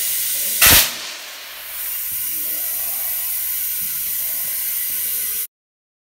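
Compressed air hissing loudly into a skid steer tyre, with a single loud bang under a second in as the tyre bead seats on the rim. The hiss then carries on steadily and cuts off suddenly near the end.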